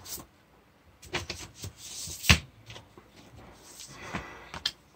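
Vinyl LP jacket and its paper and plastic sleeves being handled: rustling and light clacks, with one sharp knock a little over two seconds in.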